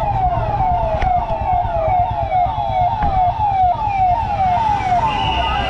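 Convoy escort vehicle's siren sounding a fast repeating falling wail, about two and a half sweeps a second, over the low rumble of vehicles; a short steady high tone joins near the end.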